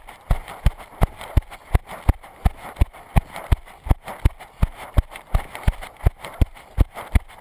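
Running footfalls on a dirt track, heard as evenly paced low thuds about three times a second through a body-worn camera, with a rustling noise between the steps.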